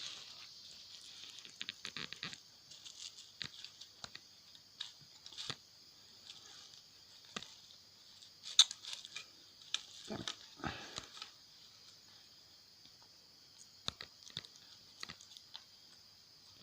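Scattered light clicks, taps and rustles of salvaged 18650 lithium-ion cells and multimeter probes being handled during a voltage check, over a steady faint hiss. The sharpest click comes about halfway through, with a short cluster of knocks soon after.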